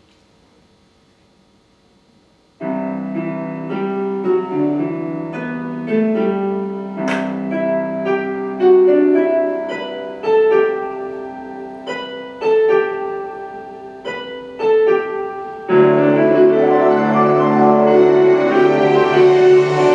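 Piano playing an instrumental introduction, starting after about two and a half seconds of near silence. The accompaniment becomes suddenly fuller and louder near the end.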